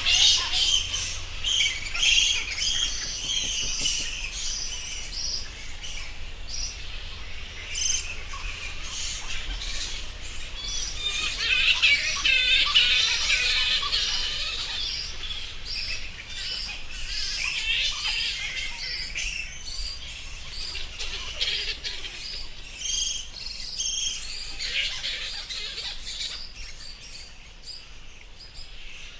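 Many bats chirping together: a dense, continuous chatter of short high-pitched squeaks and chirps, busiest about halfway through.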